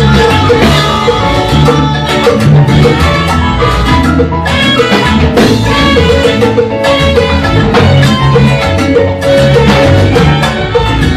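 Instrumental salsa music from an orchestra: a steady band groove with percussion and bass under pitched instrumental lines, no vocals.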